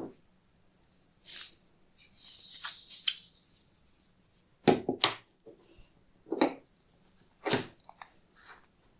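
Hands handling objects in restoration work: about half a dozen short knocks and clatters, with a stretch of rubbing or scraping about two seconds in.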